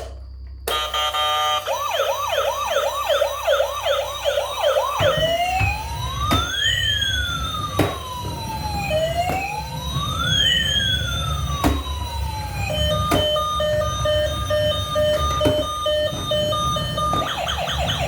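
Electronic siren of a toy emergency vehicle cycling through its patterns: a fast repeating yelp, then slow rising-and-falling wails, then a steady pulsing beep, then the fast yelp again. A low rumble runs underneath from about five seconds in, with a few sharp clicks.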